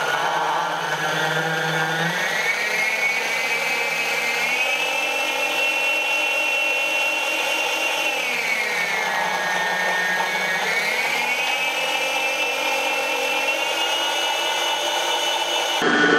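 Planetary stand mixer running, beating a butter, sugar and egg batter, with a motor whine that steps up in pitch twice in the first few seconds, sags around the middle, then climbs back and holds steady.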